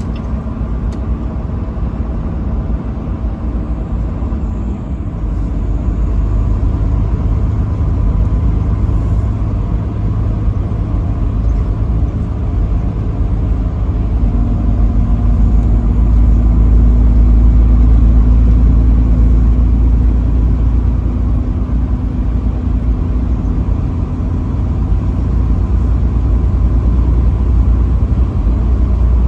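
Steady low rumble of road and engine noise heard from inside a vehicle at highway speed, swelling a little in the middle.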